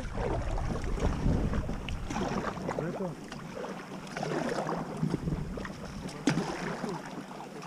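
Kayak being paddled: a double-bladed paddle dipping into and pulling through the river water, with irregular splashing from the blades.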